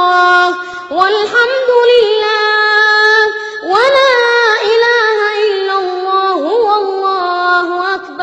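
A single high voice chanting Arabic religious praise melodically, drawing the syllables out into long, held, ornamented notes. The pitch swoops up about a second in and again near four seconds, with a quick dip and return in between.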